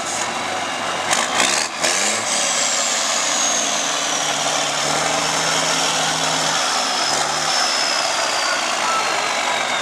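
LIAZ trial truck's diesel engine pulling under load through deep sand. Its revs shift about a second in, with a few sharp knocks, then it holds a steady pitch, while a thin high whine falls slowly.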